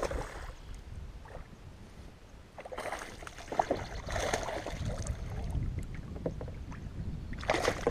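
A hooked bass thrashing and splashing at the water's surface beside a kayak, in irregular bursts that start about three seconds in and grow loudest near the end.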